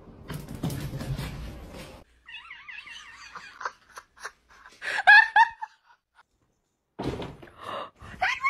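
Domestic cat calls: a wavering, trilling call about two seconds in, a louder short meow about five seconds in, and more meowing near the end. Rustling and knocks run between the calls.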